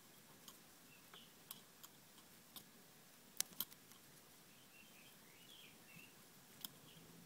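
Near silence broken by a few faint sharp clicks from fingers handling the hook, thread and bobbin in a fly-tying vise, the loudest two in quick succession about three and a half seconds in. Faint high chirps come and go in the second half.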